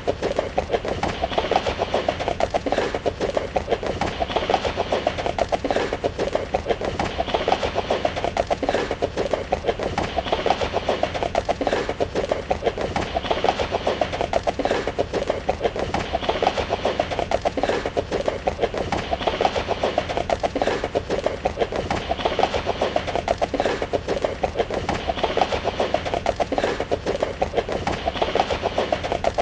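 Horse hooves galloping: a fast, steady drumming of hoofbeats that keeps going without a break. The same stretch of hoofbeats repeats about every one and a half seconds.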